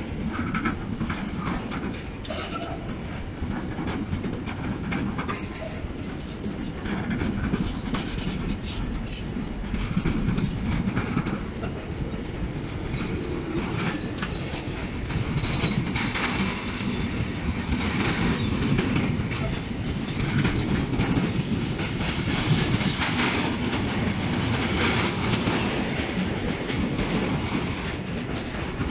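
Container freight train rolling past close by: a steady rumble of the wagons with the clickety-clack of wheels over rail joints, growing somewhat louder in the second half.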